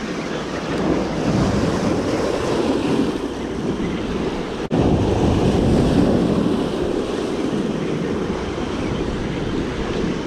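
Waves breaking and washing against the granite boulders of a rock jetty, with wind buffeting the microphone. The sound drops out for an instant a little before halfway.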